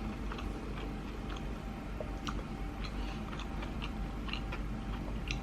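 Close-miked chewing of a sushi roll: soft, irregular wet mouth clicks and smacks over a faint steady low hum.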